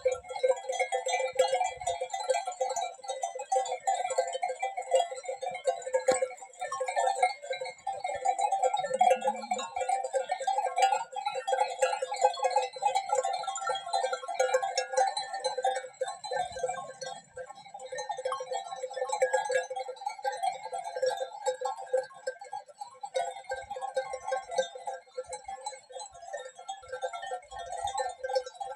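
A large grazing flock of sheep: a steady, unbroken jangle of many sheep bells clanking at once, with scattered bleats.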